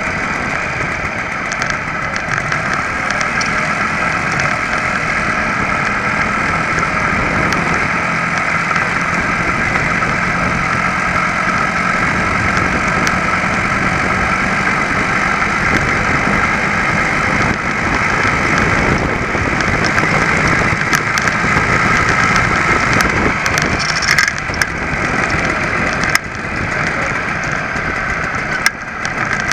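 Small two-stroke engine of an ABG (Velo) VAP moped running steadily under way, heard close up from the frame, with two brief drops in level near the end.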